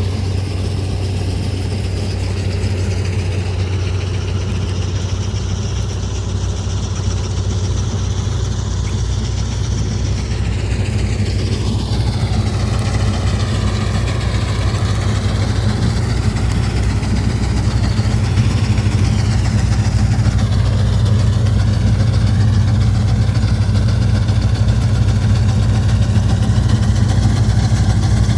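Combine harvester running steadily with a deep engine drone, and higher whines from the machine that waver in pitch, shifting about twelve seconds in.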